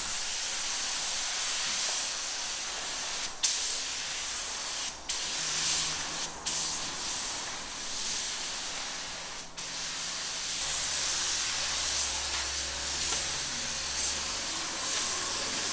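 Compressed-air gravity-feed spray gun hissing steadily as white primer sealer is sprayed onto a bare car body, with a few brief breaks where the trigger is let go between passes.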